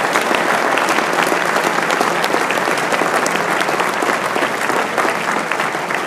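Large crowd applauding: dense, steady clapping that begins to ease off near the end.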